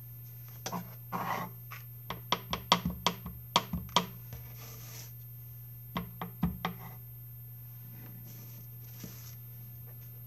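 Clear acrylic stamp block tapped against an ink pad to ink a butterfly stamp. A quick run of sharp plastic taps comes about two to four seconds in, and a few more about six seconds in.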